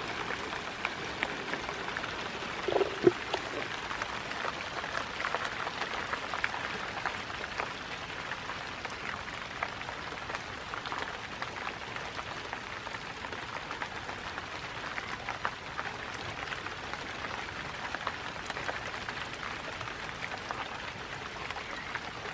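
Steady rain falling, with many small drops ticking close by. About three seconds in there is a short pitched sound and then a sharp knock.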